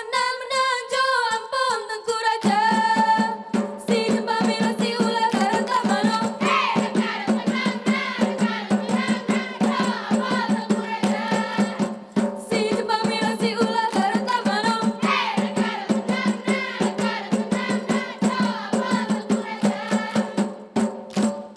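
Acehnese seated group dance: female voices singing a chant-like folk song over fast hand claps and body slaps from the row of kneeling dancers. About two and a half seconds in, the percussion thickens into a dense, driving rhythm under a low steady tone.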